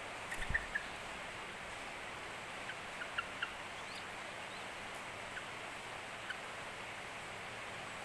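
Caged bird giving short, high chirps: a quick run of four about half a second in, then a few scattered single and paired chirps, over a steady hiss. A soft low thump comes with the first run.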